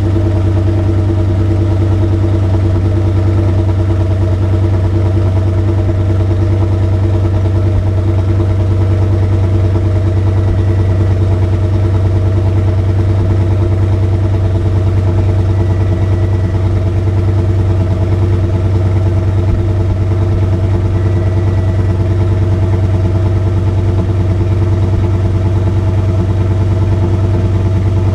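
Audi S8's 5.2-litre V10 idling steadily on cold idle after a cold start, its exhaust note coming through an X-pipe and out of the quad tailpipes. No revs: pitch and level stay even throughout.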